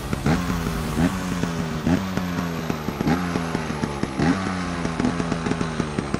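A GasGas TXT Pro Racing 125 trials bike's single-cylinder two-stroke engine running, with its revs rising briefly and falling back several times as the throttle is blipped.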